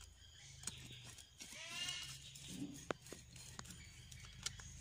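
A few light metallic clicks of a screwdriver working the screws of a small carburettor. A short wavering call is heard about a second and a half in.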